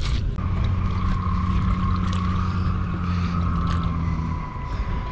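A steady low engine drone with a fainter, higher steady whine over it. It dips away about four and a half seconds in and returns, with a few light clicks.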